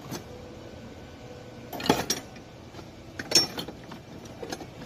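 Metal stand-mixer attachments (wire whisks and beaters) clattering against each other as a hand rummages through them in a plastic bin, with two louder clanks about two and three and a half seconds in.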